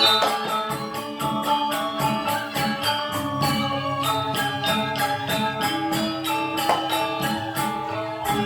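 Balinese gamelan gong kebyar ensemble playing dance accompaniment: ringing bronze metallophone and gong tones over fast, even cymbal-like strikes several times a second. A strong new stroke near the end is left ringing.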